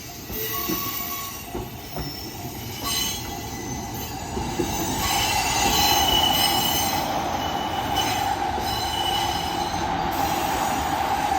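Electric commuter train rolling slowly into a rail depot, its wheels squealing intermittently on the curved track over the rumble of the cars. The running noise grows louder about five seconds in.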